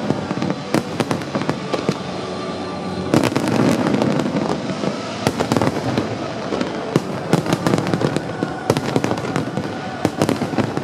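Fireworks display: a rapid run of sharp bangs and crackling bursts, densest about three to five seconds in.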